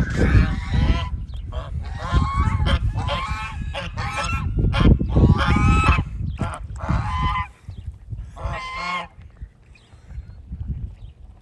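Geese honking repeatedly in short, nasal calls over a loud low rumble; the calls stop about nine seconds in.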